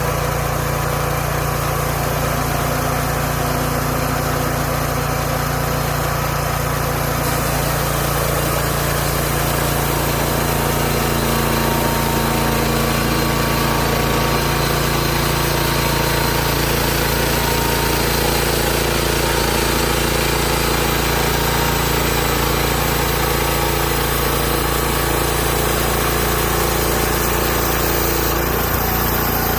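Gas engine of a Hud-son Homesteader 30 band sawmill running steadily, a small engine's even drone with a hiss above it.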